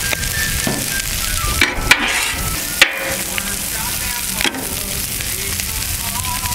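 Brussels sprouts and bacon sizzling steadily on a hot Blackstone flat-top griddle as cooking oil is squeezed onto them. A few sharp clicks and pops break in, the loudest about three seconds in.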